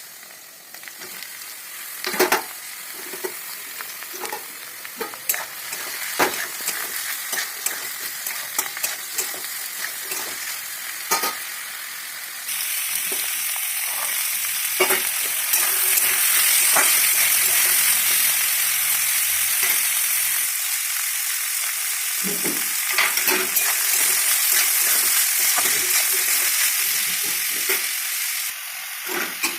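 Food sizzling in a hot pan while a spatula stirs it, clacking and scraping against the metal many times. The sizzle gets suddenly louder about twelve seconds in, as if fresh ingredients hit the oil, and eases again near the end.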